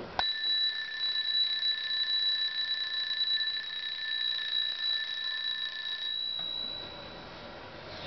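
Wind-up mechanical Palomita alarm clock going off: its bell is hammered rapidly in a steady high ring that starts suddenly, lasts about six seconds, then stops and dies away.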